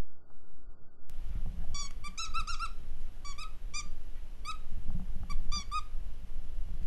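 A corgi puppy plays with a plush hand puppet. About two seconds in, short high squeaks begin in quick little clusters, a dozen or so over the next four seconds, over low thuds and rustling.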